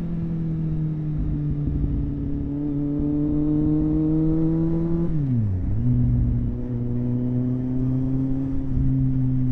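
Kawasaki Z750 motorcycle's inline-four engine under way, heard through a helmet-mounted camera microphone: the revs climb slowly, fall sharply about five seconds in, then hold steady.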